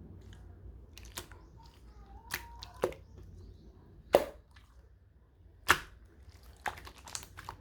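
Slime being handled and pressed, giving irregular sharp pops and clicks as air pockets burst, about seven in all, the loudest two about four and five and a half seconds in.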